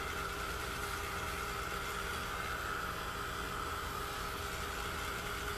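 Electric hot-air blower running steadily with an even whooshing hiss, drying wet paint on a paper index card.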